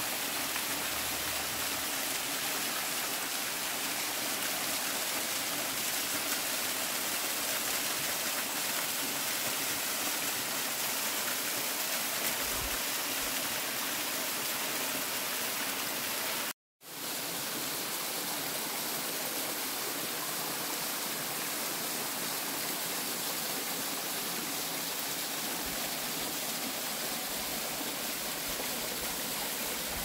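Waterfall: a steady rush of falling water, unchanging throughout. It cuts out to silence for an instant a little past halfway and comes straight back.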